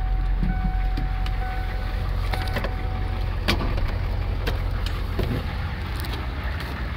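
Straight-piped 1993 Ford F-250's 7.3 IDI turbo diesel V8 running while driving, heard from inside the cab as a steady low rumble that the owner finds barely louder than with the factory muffler. A thin steady whine stops about three seconds in, and a few light knocks come later.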